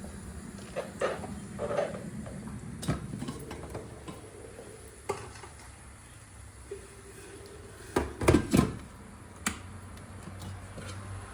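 Dishes and kitchen utensils being handled, with scattered clinks and knocks; the loudest are two knocks close together about eight seconds in.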